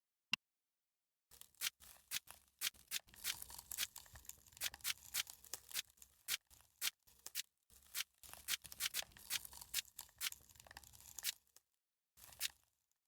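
Slime being squeezed and pressed by hand, giving a long run of irregular crackling pops and clicks. A single click comes just before, and a short burst of crackling near the end.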